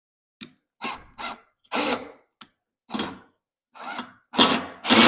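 Power drill driving a screw into wood in a series of short trigger bursts, the later ones longer and louder.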